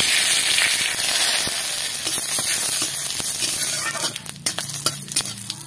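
Bay leaves and whole spices (cumin and radhuni seeds) sizzling loudly as they hit smoking hot oil in an iron kadai: the tempering (phoron) for a curry. The sizzle eases off about four seconds in, and a metal spatula clicks and scrapes against the pan as it stirs.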